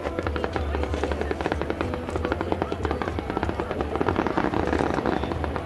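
Fireworks display: a dense, rapid run of pops and crackles from aerial shells bursting in quick succession.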